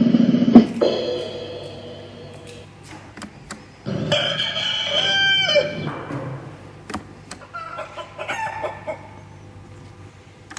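Recorded rooster crowing played back as a stored sound effect, one long crow about four seconds in that drops in pitch at its end. Another sound fades out in the first two seconds, and sharp clicks occur throughout.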